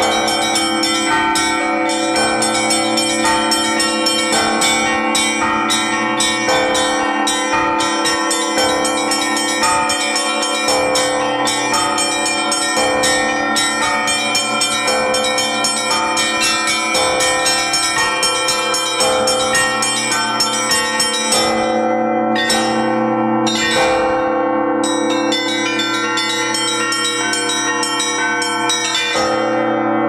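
Russian Orthodox festive peal (prazdnichny zvon) rung by hand on a set of church bells: rapid, overlapping strikes on the small and middle bells over the steady hum of the large bells. The fast ringing breaks off briefly twice about two-thirds of the way through, then stops near the end, leaving the large bells humming.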